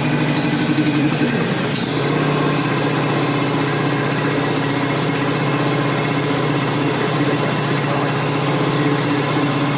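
Briggs & Stratton engine of a John Deere D110 ride-on mower running steadily after a service, run briefly to circulate the fresh oil before the oil level is rechecked.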